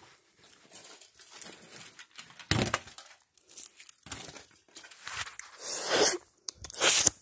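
Handling noise from a sleeve rubbing against the phone as it is moved: several short bursts of rustling and crinkling, the loudest near the end.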